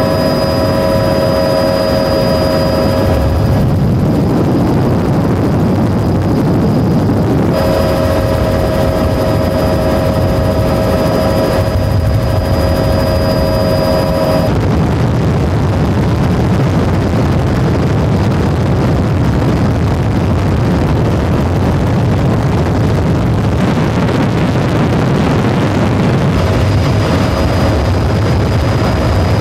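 Loud, steady aircraft engine noise heard from on board during flight. A set of steady whining tones over it cuts out twice and comes back.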